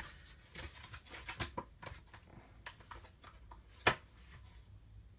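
Faint handling of plastic blister packaging and trading card packs: scattered light crinkles and small taps, with one sharp click about four seconds in.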